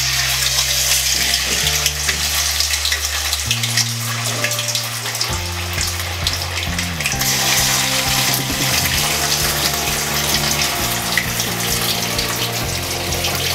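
Masala-coated tilapia (jilebi fish) sizzling steadily in hot oil, the sizzle coming in as the fish is laid into the pan. Background music with a low bass line plays underneath.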